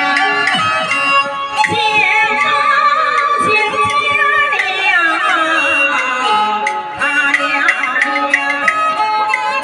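A woman sings a Chinese opera aria in the young male (xiaosheng) role through a handheld microphone, with a wavering vibrato. Bowed huqin fiddles and sharp percussion clacks accompany her.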